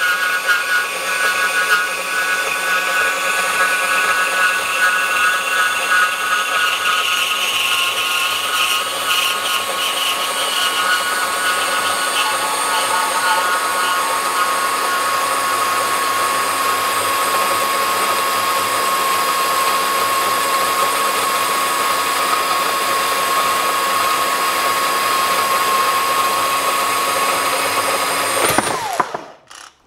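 Hercules 20V cordless brushless deep-cut band saw running and sawing through 4.5-inch steel pipe with a quarter-inch wall, a steady whine with the blade grinding through the metal. It stops near the end.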